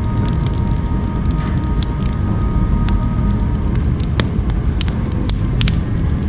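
Wood fire burning in a wood stove: sharp crackles and pops scattered over a steady low rumble, the loudest pops about four and five and a half seconds in.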